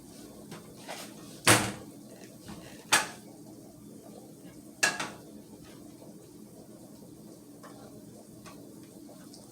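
Cookware and utensils clattering: three sharp knocks about a second and a half apart, each with a short ring, among a few fainter clinks.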